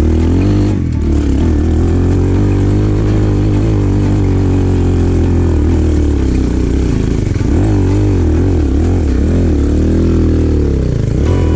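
Enduro motorcycle engine running, fairly steady at first, then revving up and down repeatedly in the second half as the throttle is worked.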